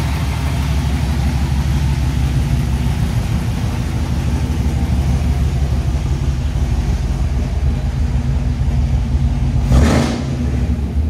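1976 Ford Bronco's fuel-injected V8 idling steadily, still warming up after a cold start. A short loud rushing burst comes about ten seconds in.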